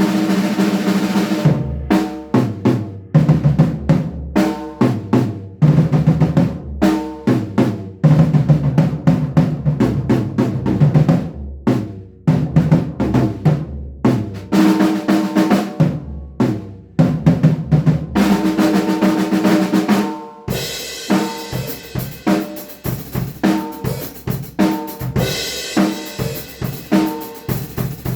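Acoustic drum kit played solo: runs of drum fills with snare and bass drum, broken by short pauses, then from about twenty seconds in a steadier, unbroken beat with more cymbal sound.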